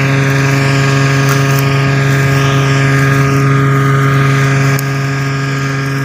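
Straw-making (tudi) combine harvester running steadily under load, a constant, even machine drone that drops a little in level about five seconds in.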